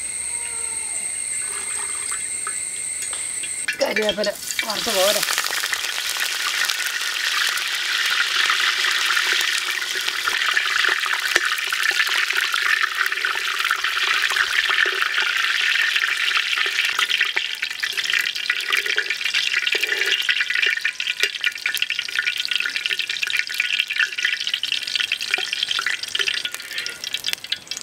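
Curry leaves sizzling and crackling vigorously in hot coconut oil in a wok, with dense spattering pops that keep up as they fry. Before the frying, a steady high buzz cuts off abruptly about four seconds in.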